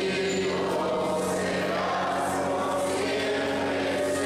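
Choral music: a choir singing long, held chords.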